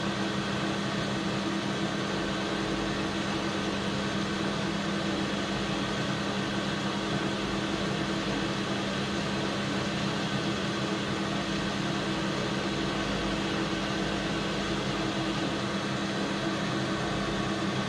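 AL960B metal lathe running steadily with a constant motor and gear hum, set up for cutting a 32 TPI thread.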